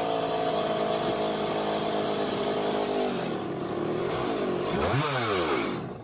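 Chainsaw engine running at a steady high speed for about three seconds, then its revs drop, rise briefly in one quick rev near the end, and fall back before the sound cuts off suddenly.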